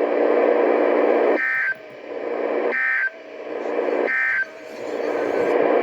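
Three short EAS SAME digital data bursts over weather radio, each a brief two-tone warble, about 1.4 s apart: the end-of-message code that closes the required weekly test. Between the bursts is a buzzy radio noise that swells and cuts off just before each burst.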